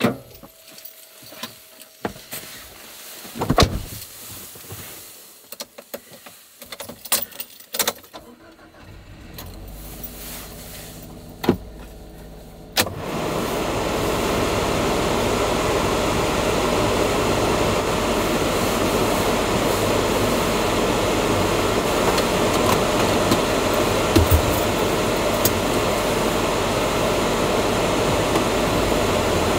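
Scattered knocks and rattles, then, a little under halfway through, a light truck's engine starts and runs steadily.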